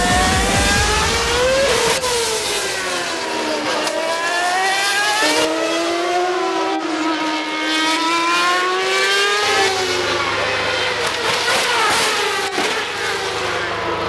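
Formula One cars' 2.4-litre V8 engines passing at high revs, several at once, each rising in pitch on approach and falling away as it goes by, with gear changes.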